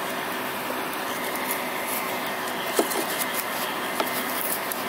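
Steady rushing noise of a coal-fired melting furnace with its air blower running, with a few small crackles about three and four seconds in.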